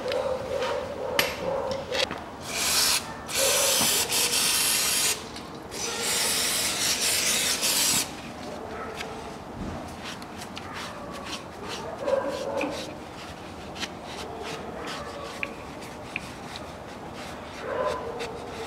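Three steady hissing bursts of spray, each a second or two long, within the first eight seconds, aimed at the oily front differential housing around the fill plug. After that comes the scuffing and rubbing of a gloved hand and rag wiping the housing.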